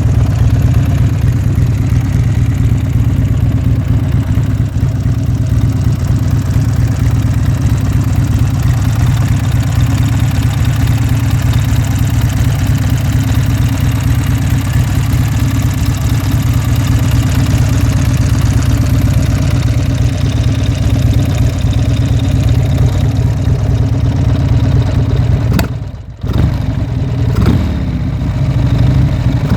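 Buell X1 Lightning's V-twin engine idling steadily. Near the end the sound briefly drops away, then the engine begins to rev up.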